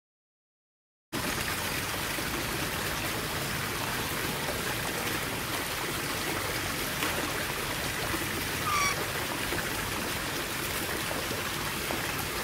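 Steady trickling, running water, beginning about a second in after a moment of silence. A single short bird chirp comes about nine seconds in.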